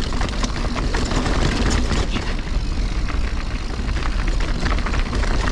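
Mountain bike descending a rocky downhill trail at speed: a steady low rumble of wind buffeting the microphone, with rapid irregular clicks and rattles from the tyres and bike jolting over rocks.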